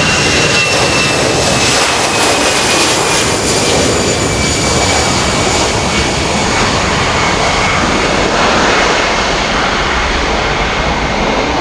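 Airbus A320-214 jet engines (CFM56) running at takeoff thrust: a loud, steady rush of engine noise with a high whine that slowly falls in pitch.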